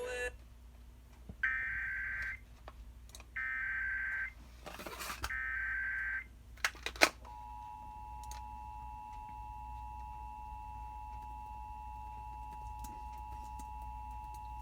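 Emergency Alert System test: the digital SAME header sent three times as three short data bursts about a second apart, then the steady two-tone EAS attention signal starting about halfway through and holding. A burst of hiss and a few sharp clicks come just before the attention tone.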